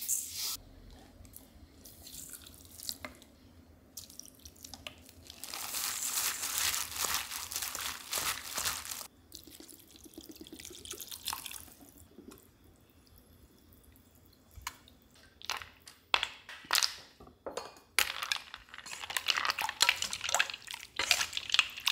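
Water poured into a stainless steel mixing bowl of seasoned julienned cucumber, splashing for several seconds. In the last few seconds a steel ladle stirs ice cubes through the cold soup, with repeated clinks and sloshing.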